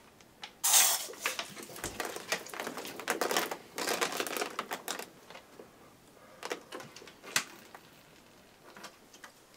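Aluminium can of club soda shaken hard in the hands: a sudden loud burst about a second in, then dense irregular clicking and rattling for a few seconds, thinning out to a few sharp isolated clicks.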